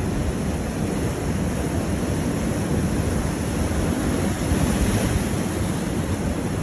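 Ocean surf breaking and washing onto a rocky shore, a steady rushing noise, with wind rumbling on the microphone.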